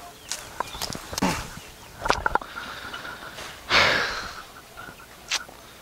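Leafy plants rustling and snapping as they are cut with a sickle, with scattered sharp clicks and a short cluster of them about two seconds in. About four seconds in, a man lets out a loud breathy exhale.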